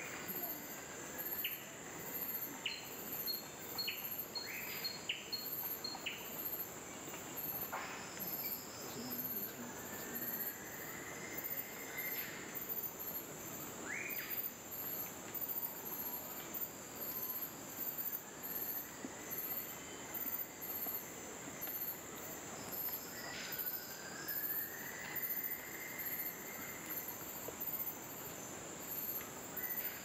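Rainforest insects buzzing steadily, with a faster pulsing chirp above the drone throughout. Birds call over it: a run of short, sharp rising notes in the first few seconds, more near 8 and 14 seconds, and three slow rising whistles spread across the middle and later part.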